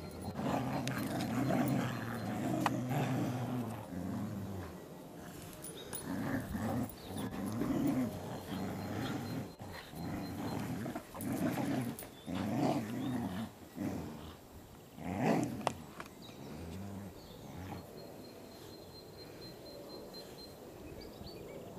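Two dogs, a Brittany and a larger red-coated dog, growling in play as they pull on a rope tug toy. The growls come in repeated bouts of one to a few seconds with short breaks between them.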